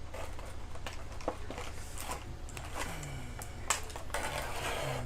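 Plastic toy packaging being handled: scattered sharp clicks and rustles as an action figure is worked loose from the ties holding it in its tray, over a steady low hum.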